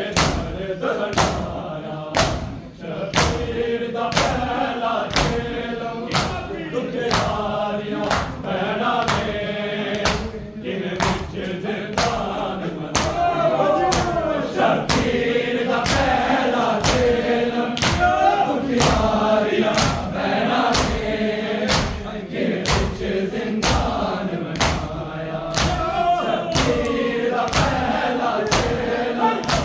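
Men chanting a Punjabi noha (mourning lament) in unison, over steady rhythmic matam: chest-beating thuds, about three every two seconds.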